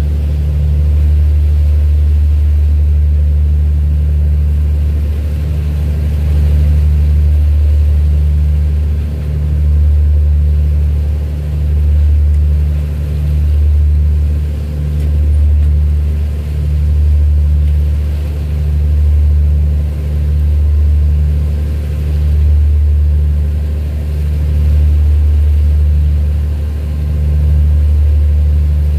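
Engine running at a steady pace: a loud, deep drone with a few steady hum tones above it, swelling and easing every couple of seconds.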